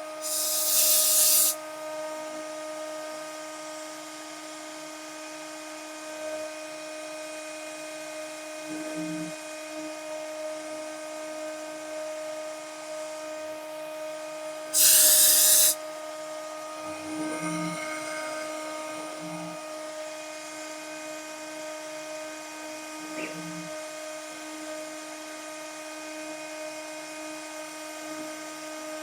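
CNC milling machine spindle running steadily with a pitched whine while cutting isolation grooves and drilling a copper-clad circuit board. Two loud bursts of hiss, each about a second long, come about half a second in and about halfway through.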